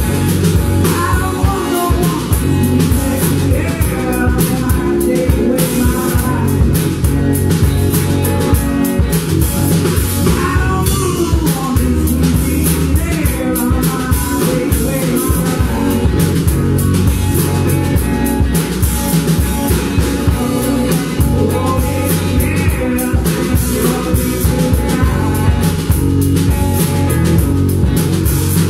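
Live blues-rock band playing: electric guitars and a drum kit, with a woman singing.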